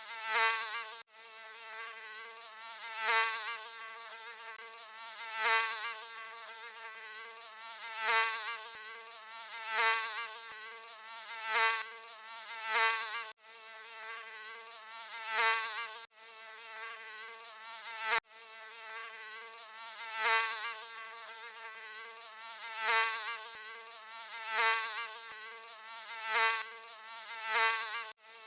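Mosquito buzzing: a high, thin whine whose pitch wavers slightly. It swells louder and fades again every two to three seconds, with a few brief cut-outs.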